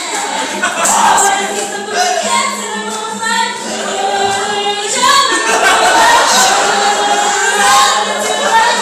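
Female voices singing together through a small PA system, with vocal beatboxing in the "boots and cats" style.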